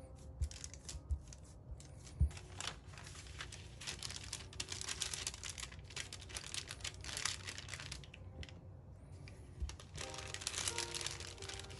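A few soft thumps of hands pressing shortcrust tart dough onto the table, then the crinkling and rustling of a sheet being laid over the dough and smoothed flat by hand. Near the end a wooden rolling pin starts rolling over the sheet, with more crinkling and faint music.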